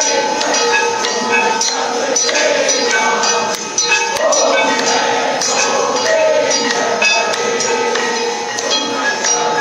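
Temple aarti: bells and small cymbals struck in a rapid, irregular clatter over a steady ringing tone, with voices chanting underneath.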